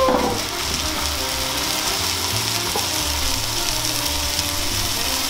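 Block of beef searing in a frying pan with olive oil on high heat: a steady sizzle.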